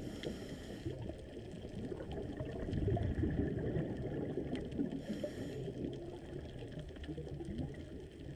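Scuba diver's breathing heard through an underwater camera housing: two short regulator inhalation hisses, the second about five seconds in, with exhaled bubbles gurgling and rumbling between them.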